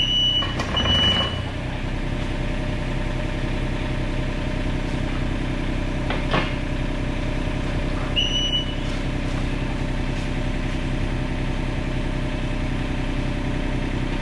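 Diesel engine of a Komatsu PC27 mini excavator running steadily while a track is driven into place, with a few short high-pitched travel-alarm beeps near the start and once about 8 seconds in. A single sharp clank about 6 seconds in.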